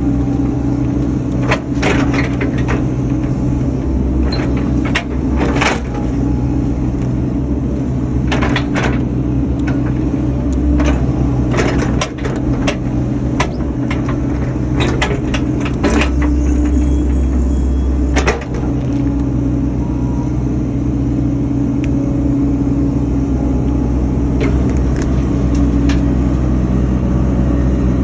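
Excavator diesel engine running steadily, heard from inside the cab, with repeated sharp knocks and cracks as stumps are picked up and loaded. About 16 seconds in the engine works harder and louder for a couple of seconds, ending in a loud knock.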